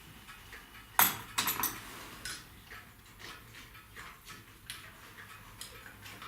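Light metallic clinks and clicks of tools and small metal parts being handled: one sharp clink about a second in, a few lighter ones right after, then scattered faint ticks.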